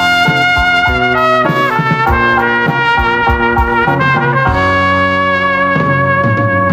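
Instrumental dance-band music led by a trumpet playing the melody over band accompaniment with a steady beat.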